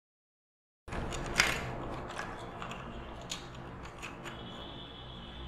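Sharp clicks and rattles from a camera tripod's locks and centre column being handled as it is raised to full height, starting about a second in, the loudest about half a second later, then several lighter clicks.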